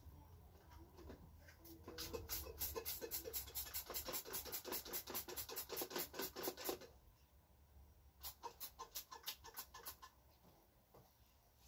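Rapid rhythmic scratching, about six strokes a second, in a run of about five seconds and a shorter run a second or so later.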